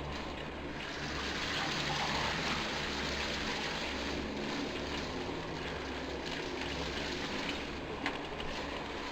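Steady rushing noise of a full-suspension mountain bike being ridden on a dirt trail, heard through a chest-mounted camera: tyres rolling and wind on the microphone, swelling for a couple of seconds about one second in.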